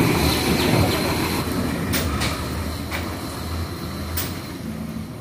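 Loaded timber truck's engine running as it drives off, the body rattling with a few sharp metallic clanks, about two and four seconds in; the sound slowly fades as it moves away.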